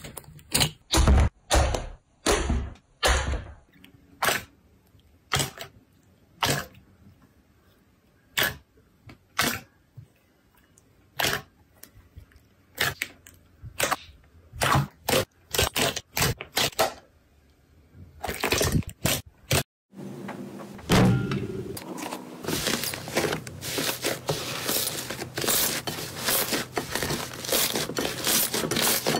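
Slime being pressed and pulled by hand: separate sticky pops and clicks at uneven intervals. After a brief break about two-thirds of the way through, dense continuous crackling follows, as from crunchy slime being squeezed.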